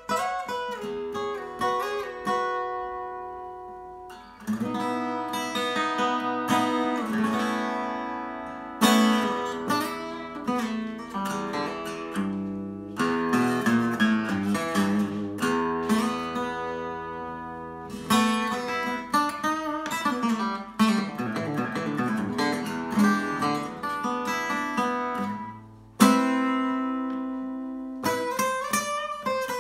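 Takamine cutaway acoustic guitar played solo fingerstyle in a blues: picked single-note lines and chords, some left to ring out, with a loud chord struck a little before the end.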